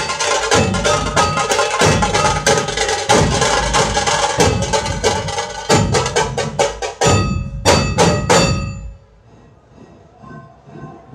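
Dhol tasha drumming: a troupe of big barrel-shaped dhol drums and small tasha drums beating a fast, dense rhythm. About seven seconds in it breaks into a few big unison strokes and then stops.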